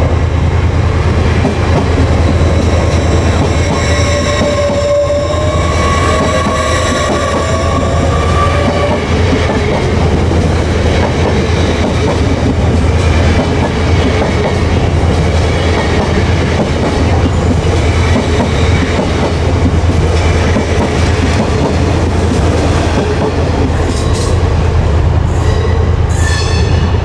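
A train moving through a station with a steady low rumble. For several seconds near the start its wheels squeal in high, slightly rising tones, and a few sharp metallic clicks come near the end.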